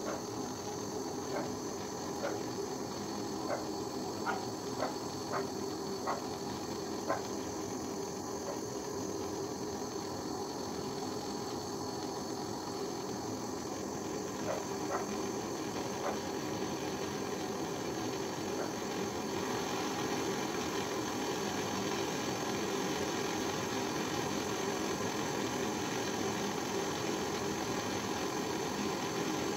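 Hand-held gas torch burning with a steady hissing flame as it heats metal in a steel bowl, getting a little louder about 20 seconds in. Short sharp chirps sound over it several times in the first seven seconds and a few more around 15 seconds.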